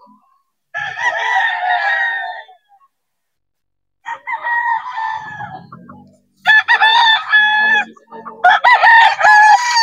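Gamecocks crowing: four long crows one after another, the last two the loudest.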